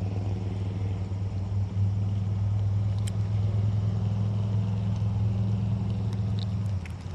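A motor vehicle's engine running with a steady low hum that drops away near the end. A single sharp click sounds about three seconds in.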